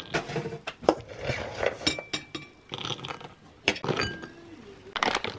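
Metal scoop clinking and scraping against a ceramic bowl as crisp, cracker-thin baked cereal squares clatter into it: a scattered run of short clinks and rattles.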